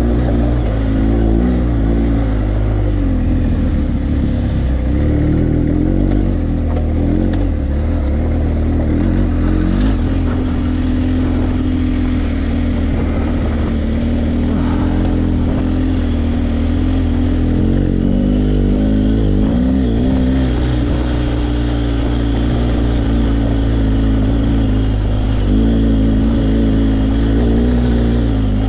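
BMW R1250GS Adventure's boxer-twin engine running under way on a dirt trail, heard from on the bike, its pitch rising and falling with the throttle.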